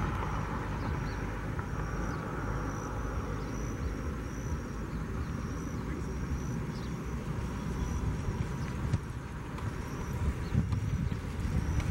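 Steady low rumble of a Boeing 737-700's CFM56-7B jet engines on final approach, heard from the ground. A faint short high chirp repeats roughly every 0.7 s for the first half.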